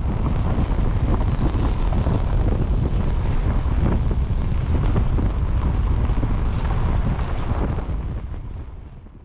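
Steady roar of whitewater rushing through a river rapid, with wind buffeting the microphone; it fades away near the end.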